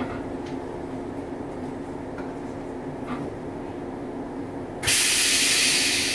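JR East 115 series electric train standing at the platform, its onboard equipment giving a steady hum. Near the end, a sudden loud hiss of compressed air being let out of its air system.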